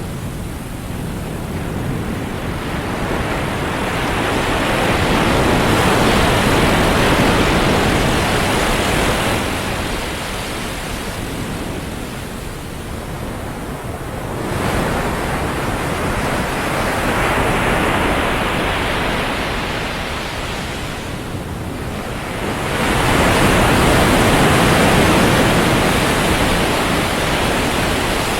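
Ocean surf on a sandy beach: loud rushing waves that swell and ease three times, each surge lasting several seconds.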